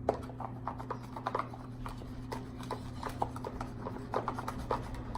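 Slime being stirred and worked in a container: irregular small clicks and wet taps, a few louder than the rest, over a steady low hum.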